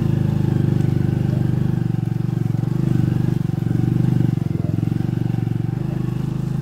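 Motorcycle engine running steadily, heard from on board as the bike rides along a muddy dirt track, its note holding fairly even with a slight swell a little past the middle.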